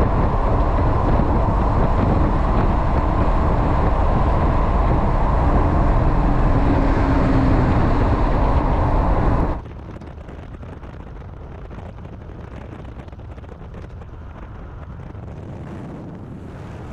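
Road and wind noise heard from inside a Mazda Bongo van driving along the highway, loud and rushing at first. About nine and a half seconds in it drops suddenly to a quieter, duller road hum.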